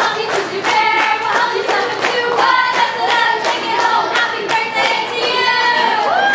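A group of voices singing together with clapping in a steady rhythm.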